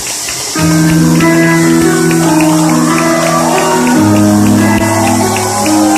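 Music with held low chords coming in about half a second in and shifting about four seconds in, over a steady ticking beat.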